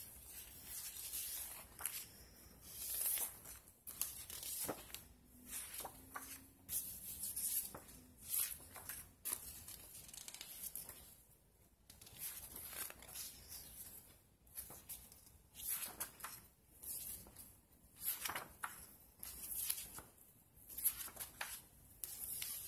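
Sheets of printed paper and cardstock rustling and sliding against each other as they are leafed through by hand, in short irregular bursts.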